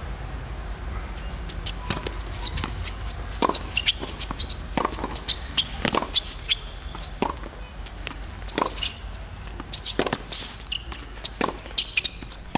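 Tennis rally on a hard court: a string of sharp knocks, roughly one a second, as the ball is struck by the rackets and bounces on the court.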